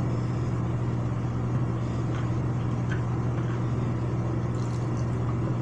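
A steady low hum with a few faint small taps over it.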